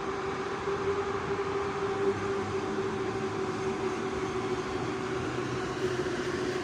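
Train running past with a steady whine that sags slightly in pitch near the end, over a bed of running noise.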